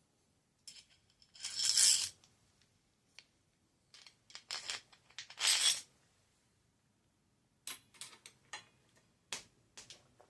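Metal parts of a bicycle headset cup press clinking and scraping as they are handled and fitted. Two longer scrapes come about two seconds in and past the middle, and scattered sharp clicks follow near the end.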